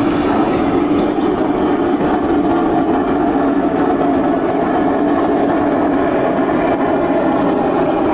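Large-scale G scale model train of flatcars rolling along the layout track: a steady rumble of wheels on rail.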